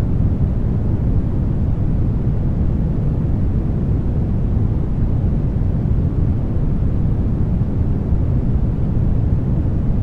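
Steady brown noise: an even, deep hiss that is strongest in the low end and thins out toward the highs, with no change in level.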